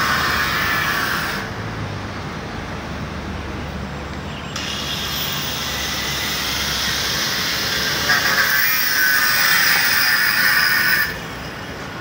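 Road traffic on a city street: a steady noise of cars driving past, which drops sharply in level twice and swells again from about two-thirds of the way through.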